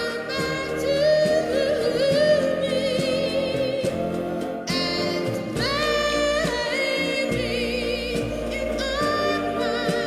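A song playing: a singing voice holding long notes with vibrato over instrumental backing.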